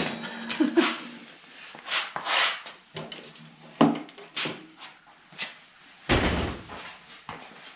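Scattered knocks and clatter of hands, tools and parts being handled on a motorbike in a small workshop, with a heavier thump about six seconds in.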